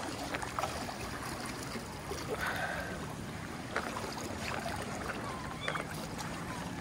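Steady rush and lapping of a fast river current around a wading angler, with a few faint clicks.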